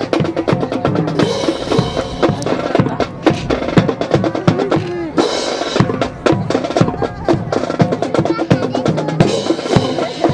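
Marching band music driven by snare and bass drums, with short held notes over a steady drum beat.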